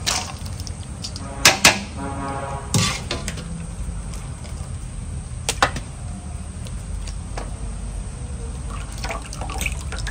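Wire skimmer clinking against a stainless steel bowl and water splashing and dripping as boiled pomelo-peel pieces are tipped into ice water to crisp them. A few sharp clinks come about one and a half, three and five and a half seconds in, with a short rattle of ice between them.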